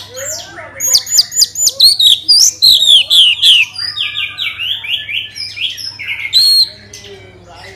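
Orange-headed thrush (anis merah) singing a fast, loud run of varied whistled phrases, mostly quick downward-sliding notes repeated in series, which dies away near the end. A faint steady low hum lies underneath.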